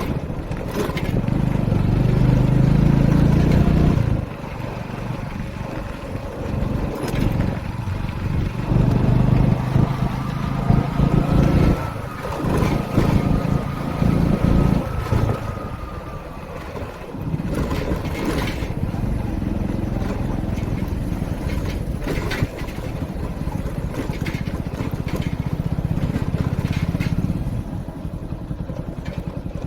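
Motorcycle engine running while riding, its note swelling and easing several times with the throttle.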